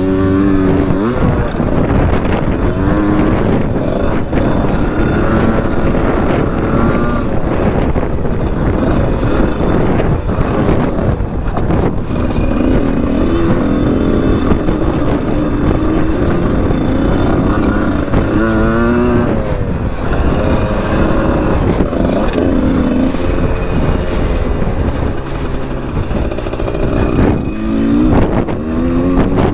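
Husqvarna SMS 125 dirt bike engine revving up and down as it is ridden around a motocross track, its pitch climbing and dropping again and again with throttle and gear changes. Wind rushes over the camera microphone.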